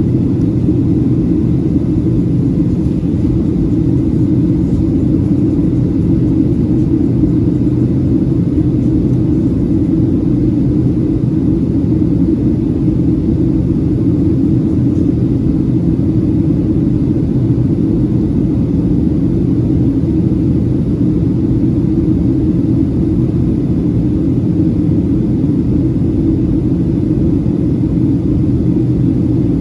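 Steady cabin drone of a Boeing 737-700 in descent: its CFM56-7B engines and the airflow over the fuselage make a constant low rumble that does not change.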